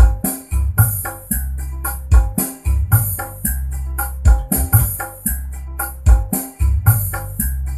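Recorded music with a steady drum beat and a heavy bass line, playing over Bluetooth through a Polytron active speaker. The speaker is being sound-tested without a mixer, with its bass control being adjusted.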